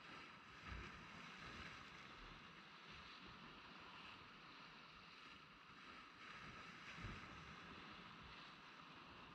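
Faint surf washing against jetty rocks, with light wind on the microphone. Two dull low thumps stand out, one about a second in and another about seven seconds in.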